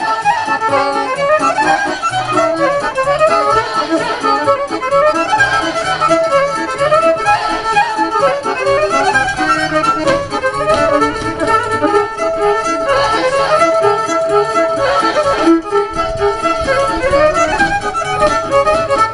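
Fiddle-led Romanian folk dance music for the Călușul, a busy, unbroken melody over a steady accompaniment.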